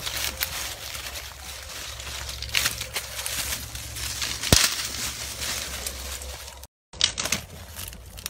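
Dry twigs and dead leaves crackling and snapping as Patterdale terrier puppies push and scramble through a brush pile, with one sharp snap about halfway through. The sound cuts out briefly near the end.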